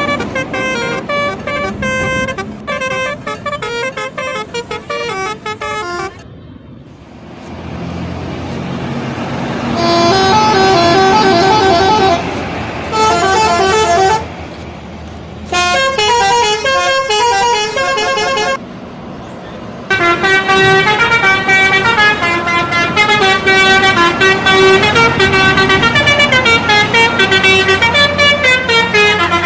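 Bus telolet horns, multi-trumpet air horns playing rapid tunes of many notes stepping up and down in pitch, in several runs with short pauses between them, over a low rumble of engines.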